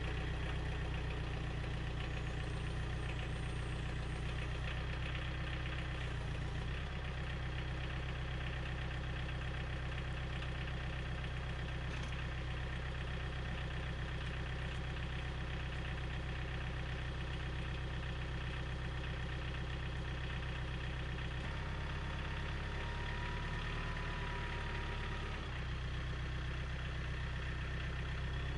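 A machine's engine running steadily. Its note shifts slightly about three quarters of the way through, and a thin whine comes in over it for a few seconds.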